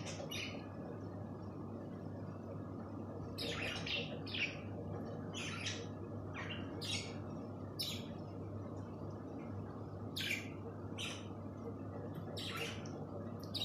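Small caged pet birds chirping: a dozen or so short, sharp calls at irregular intervals. A steady low hum runs underneath.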